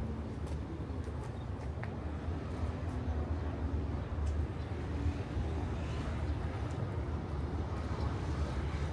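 Street ambience of a city avenue: a steady low rumble of traffic, with a few faint clicks.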